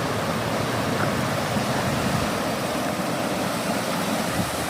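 Small mountain creek rushing and babbling close by: a steady flow of water, possibly swollen with snowmelt.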